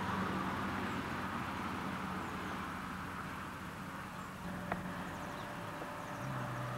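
Steady outdoor background noise with a low, even hum, and a single short click about two-thirds of the way through.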